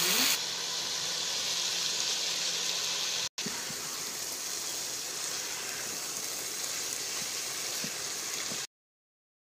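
Green beans sizzling as they fry in hot oil in a pot: a steady hiss. It drops out for an instant about a third of the way in and cuts off suddenly near the end.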